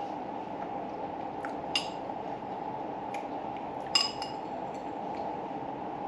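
A utensil clinks twice against a dish while the pudding is being eaten, once about two seconds in and again, louder, about four seconds in, each with a brief ring. A steady low hum runs underneath.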